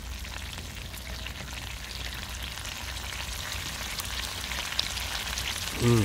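Oil in an open sardine tin sizzling and crackling as the tin heats directly over a camping gas stove, the small pops growing more frequent in the second half.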